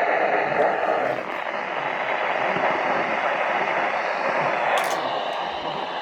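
Radio receiver static: a steady hiss and crackle, with a brief sharper crackle about five seconds in.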